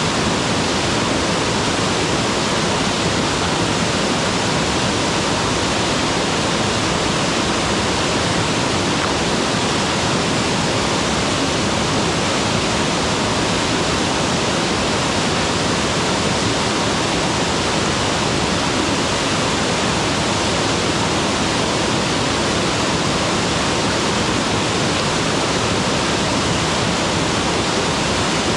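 Mountain waterfall pouring steadily: a dense, even rush of falling water with no breaks or changes.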